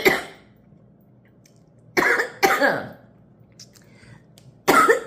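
A woman's coughing spell: a cough at the start, two more close together about two seconds in, and another near the end. It is her lingering, nagging cough, which leaves her short of breath.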